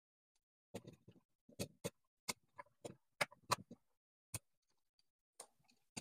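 Faint, sharp clicks and ticks, about nine spread over a few seconds, from bare ground wires being pushed into a 3-pin WAGO lever-nut connector and its levers being snapped shut.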